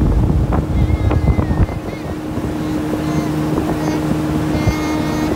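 Small boat's outboard motor running at speed, a steady engine hum under heavy wind buffeting the microphone.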